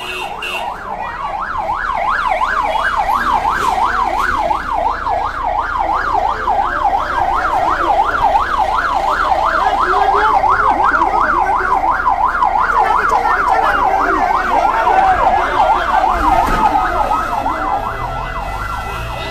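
Emergency vehicle siren in a fast yelp, its pitch sweeping up and down about three times a second, growing louder about two seconds in and easing off near the end.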